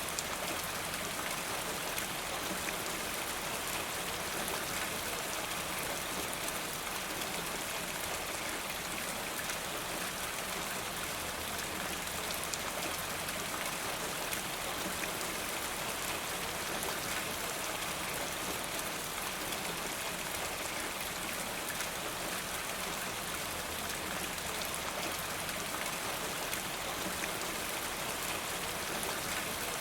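Steady rain with many fine drops striking a roof surface and water running off a rain gutter, an even unbroken patter.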